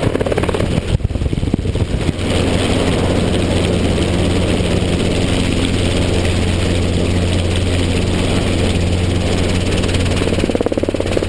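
Helicopter running steadily in flight, its rotor giving a fast, even beat over a low engine drone.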